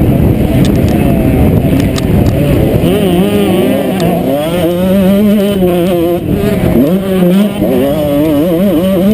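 Motocross bike engine, heard from the rider's helmet, running hard with the revs swinging up and down through the corners over heavy wind rush on the microphone. About two-thirds of the way in the revs drop briefly, then climb again.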